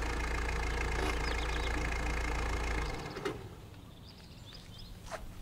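Citroën C15 van's engine idling steadily, then cutting off about three seconds in as it is switched off, followed by a single clunk.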